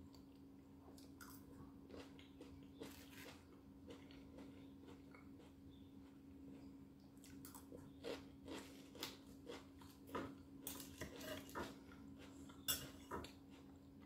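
A metal fork clinking and scraping against a plate of salad: scattered light clicks, more frequent after about eight seconds, with the loudest one near the end. A steady low hum runs underneath.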